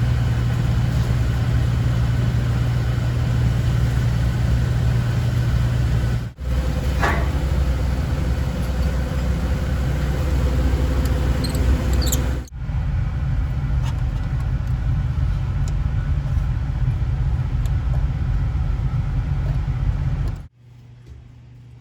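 Steady low hum of running HVAC machinery, with a few faint steady tones above it. It drops out briefly twice and falls to a much quieter hum near the end.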